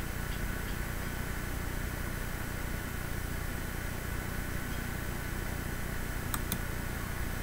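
Steady low hiss and hum of room tone, with two faint clicks near the end.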